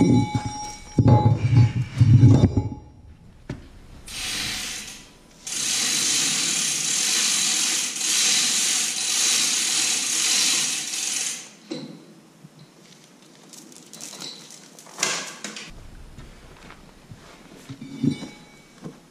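Metal hand tools and parts clanking and clinking, then a brief hiss and a longer steady hiss of about six seconds, followed by a few scattered clicks.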